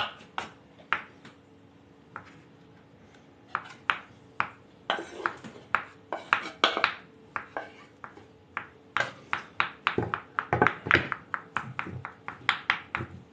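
Kitchen knives chopping boiled potatoes on wooden cutting boards: irregular sharp taps of the blades on the wood. The taps pause about two seconds in, then return and come quickly near the end.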